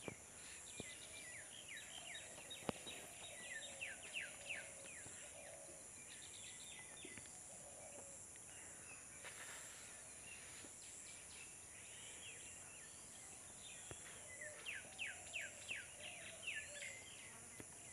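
Quiet outdoor ambience: a steady high insect drone with runs of quick, falling bird chirps near the start and again near the end, and a few faint single taps.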